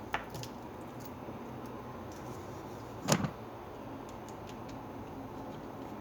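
Small parts and a screwdriver being handled while an opened hammer drill is reassembled: a couple of light clicks at the start, one louder knock about three seconds in, and scattered faint ticks.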